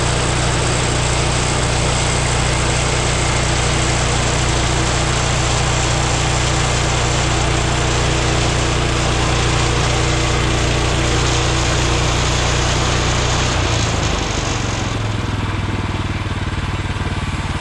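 Portable bandsaw sawmill's small gas engine running steadily under load as the mill rips a maple board with a dull blade. About 14 seconds in, the engine note drops lower and a little quieter.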